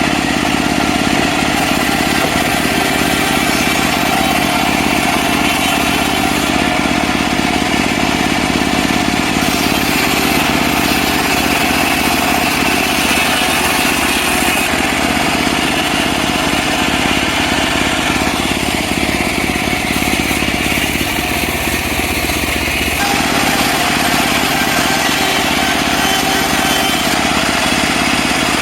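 Engine of a portable sawmill running steadily under load while sawing a mahogany log, its tone shifting slightly about two-thirds of the way through.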